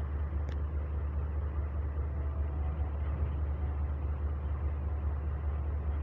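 Diesel-electric freight locomotives EL63 and GL108 idling: a steady low drone.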